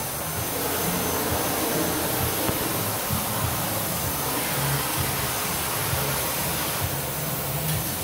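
Dyson Animal canister vacuum cleaner running steadily, a constant rushing hiss of its motor and airflow.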